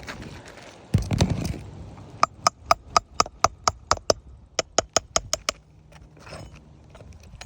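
A heavy scuff and thump about a second in, then about fifteen quick ringing hammer taps on metal, about four a second in two runs, as a tool is worked under a damaged roof shingle to reach its nail.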